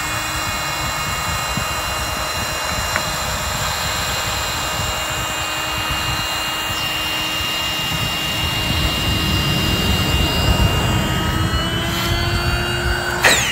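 Electric powered inflator (air pump) running steadily with a whine and a low rumble as it fills an inflatable kayak's chamber with air. Its pitch rises slightly near the end, then it is switched off and winds down with a falling whine.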